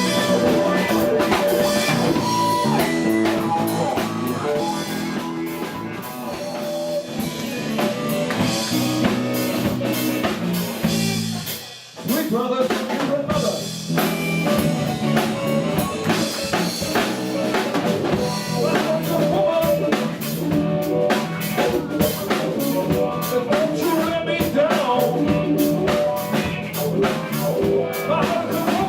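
Live blues-rock band playing, with drum kit and guitar. The band stops briefly about twelve seconds in and comes straight back in.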